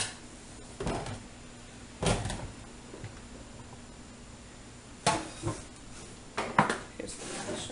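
Separate clunks and knocks of a stainless-steel colander against a steel sink and a plastic bowl as boiled potatoes are tipped out and handled, with quiet between them; the loudest come in a quick cluster past the middle.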